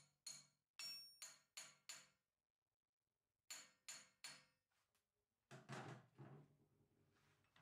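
Light, sharp metallic taps of a hand tool on the steel change gears of a South Bend lathe's gear train, about three a second, each with a short ring. They come in two runs with a pause of about a second and a half between. A louder metal clatter follows a couple of seconds before the end.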